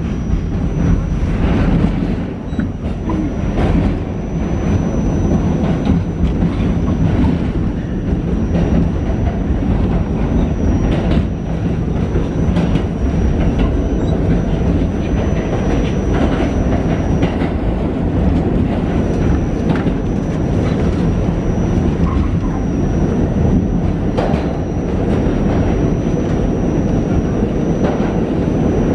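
New York City subway R46 train running through a tunnel, heard from inside the car: a steady loud rumble of wheels on the rails with irregular clicks over rail joints.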